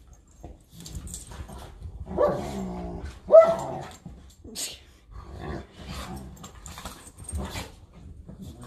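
Two dogs play-fighting, a small pit bull mix and a larger dog, growling low through the rough play, with two louder, higher-pitched barks about two and three seconds in.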